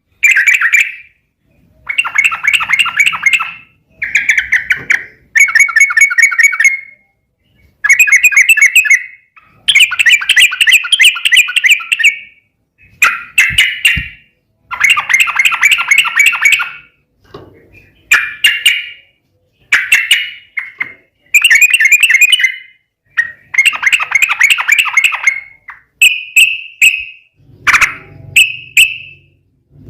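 Yellow-vented bulbul (trucukan) singing loud, bubbly chattering phrases, each made of rapid notes and lasting one to two seconds, repeated again and again with short pauses between. Toward the end the phrases become shorter.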